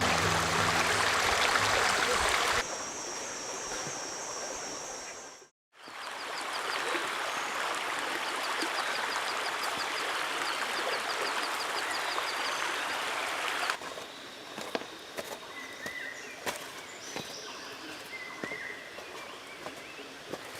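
Outdoor forest sound in several spliced takes: a steady rushing noise, with a fast repeating high insect chirp over it in the middle part. It cuts out abruptly for a moment about five seconds in. Near the end it turns quieter, with scattered clicks and short bird-like chirps.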